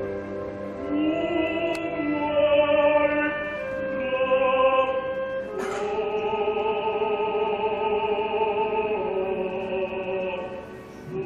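Opera music: orchestra with a voice singing long held notes with vibrato. There is a brief click about five and a half seconds in.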